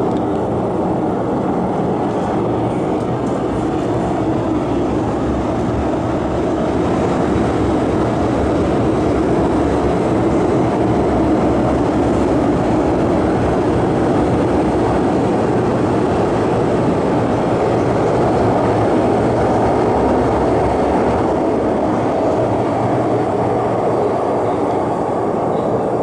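MTR M-Train electric metro train running through an underground station without stopping, a steady loud rumble of wheels and running gear heard through the platform screen doors.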